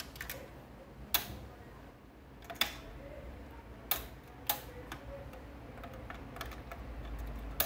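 Tonearm and control levers of an Evadin AHS-124 record player being worked by hand: about five sharp mechanical clicks, spaced irregularly, over a low steady hum that grows a little louder near the end.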